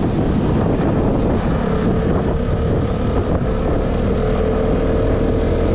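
Vespa S125 scooter's single-cylinder engine running at a steady cruising speed, under heavy wind rush on the microphone. A steady whine comes in about a second in and holds.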